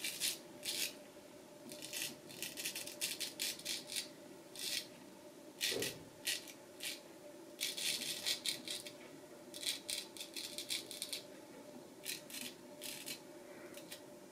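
Nashville Barber Supply Kaeser's No. 402 straight razor shaving lathered stubble: short crisp scraping strokes in quick runs of several, with brief pauses between the runs.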